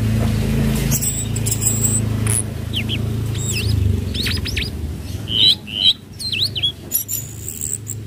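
Tledekan laut (a blue flycatcher) giving scattered short whistled notes and quick up-and-down chirps, with a louder run of notes about five and a half to seven seconds in. Under them runs a steady low hum.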